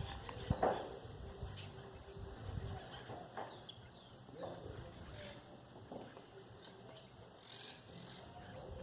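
Faint clicks and rustles of paper and craft materials being handled, with a few short high chirps, like small birds, in the background.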